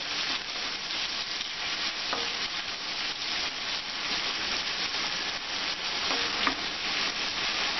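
Sliced onions sizzling steadily in hot mustard oil in a kadhai, stirred with a wooden spatula, with a few light taps of the spatula against the pan.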